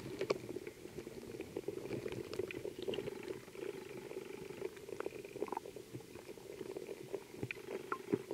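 Stream water flowing past a submerged camera, heard muffled underwater as a steady low rushing rumble with scattered small clicks and ticks.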